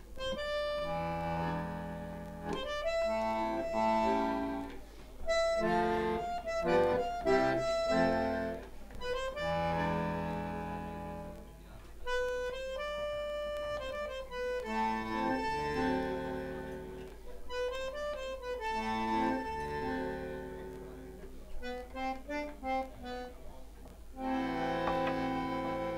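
Bandoneon playing an instrumental passage of sustained melody notes and chords, in phrases that swell and break off with short pauses.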